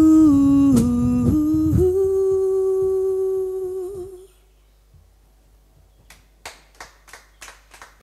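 A singer's voice holds the last note of a song. The backing beat drops out after about two seconds, and the held, slightly wavering note fades out at about four seconds. A quieter stretch follows, with a handful of short sharp clicks near the end.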